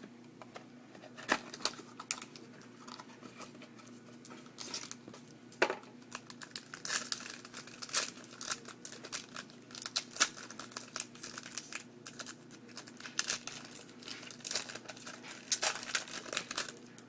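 Plastic wrapper of a football trading-card pack being torn open and crinkled, in a run of irregular crackles, busier in the second half, with cards being handled.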